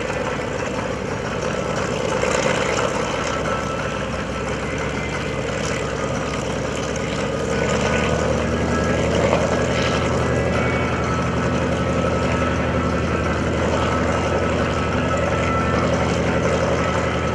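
Douglas A-1E Skyraider's Wright R-3350 18-cylinder radial engine running at low power as the plane taxis, a steady engine note that grows slightly louder and steadier about eight seconds in.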